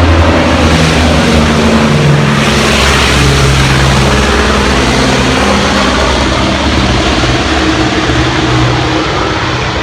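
Propeller aircraft engines running loud and steady close by, easing slightly near the end.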